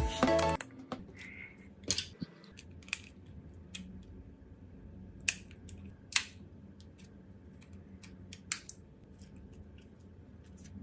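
Scattered sharp clicks and small taps of tools and parts being handled on a phone under repair, the loudest about six seconds in. Background music cuts off just after the start.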